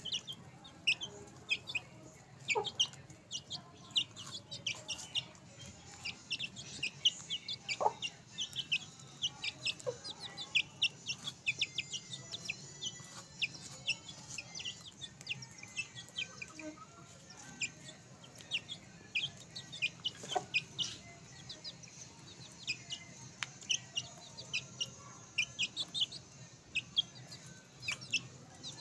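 Young chicks peeping over and over in short, high chirps, several a second, while they feed, with a few louder sharp clicks among them and a low steady hum underneath.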